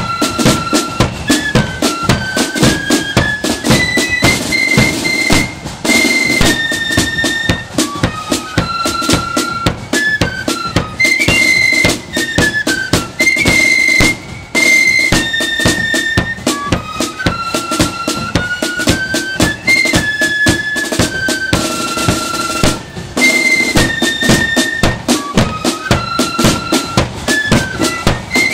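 Marching flute band with snare and bass drums playing a tune: a high flute melody over a dense, steady drumbeat, the melody repeating after about fourteen seconds.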